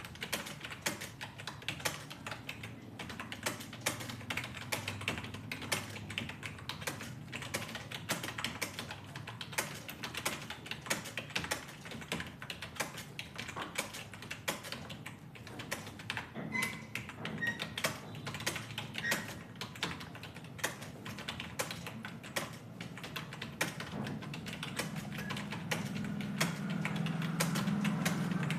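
Fast, continuous typing on a computer keyboard, several key clicks a second in an uneven stream, over a low steady hum that grows louder near the end.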